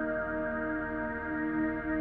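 Background music: slow ambient music of sustained, ringing tones.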